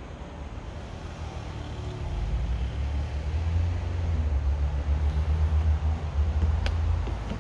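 A motor vehicle passing close by: a low engine rumble that swells over a few seconds and eases off near the end. A couple of sharp clicks come just before the end.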